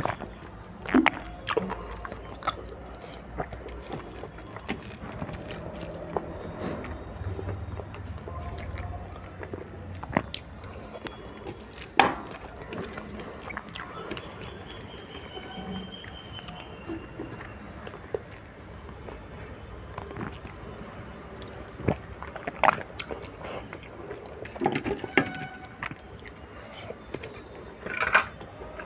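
Eating by hand from a steel plate: mouth-full chewing, with scattered sharp clicks of fingers and food against the metal plate. A louder clatter comes near the end as the plate is moved away.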